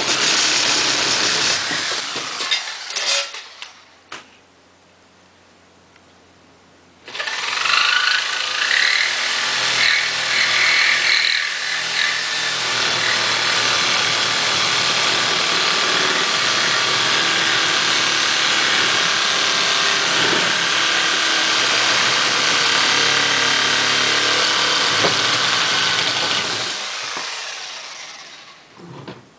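Corded electric power tool running and cutting wood: a short spell at the start, then a long steady run that winds down near the end.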